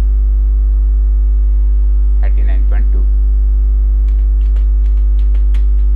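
Loud, steady electrical mains hum with a ladder of overtones, buzzing under the whole recording. A short snatch of voice comes about two seconds in, and a few faint clicks of computer keys follow later as a value is typed in.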